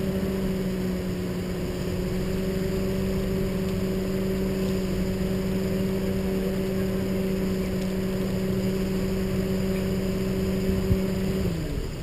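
Car-mounted train horn sounding one long steady blast of about twelve seconds, its pitch sagging as it cuts off near the end.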